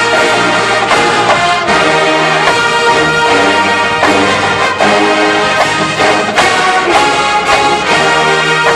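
Brass band music from a spy-themed show: held brass chords that change every second or so, with sharp accents between them.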